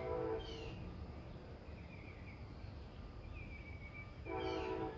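A horn sounding a steady chord in two blasts, the first ending about half a second in and the next starting shortly before the end. Birds chirp in between.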